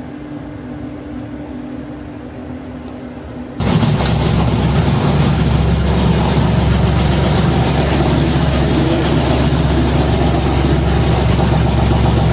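Lifeboat's diesel engine running steadily, coming in suddenly and loud about three and a half seconds in. Before that, a quieter steady hum while the start button is held.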